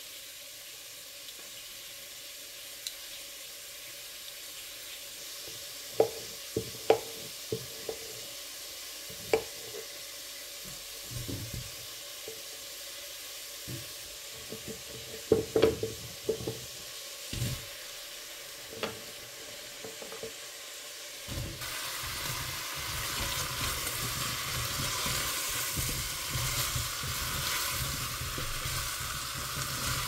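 Vegetables frying in oil in a stainless pot. At first a faint sizzle with scattered sharp knocks of a knife and vegetable pieces on a wooden cutting board. About two-thirds of the way in, a louder sizzle sets in as chopped pumpkin, carrot and potato are stirred in the hot pot with a spatula.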